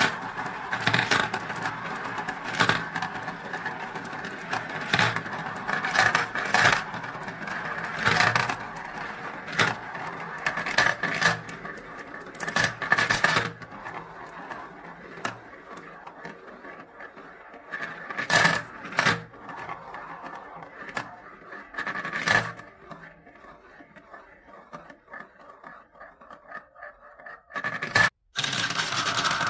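Marbles rolling and circling in clear plastic marble-run funnels, a steady rolling rattle with frequent clicks as they knock together and drop into the tubes. About halfway through the rolling thins out to scattered clicks, and it dies away near the end.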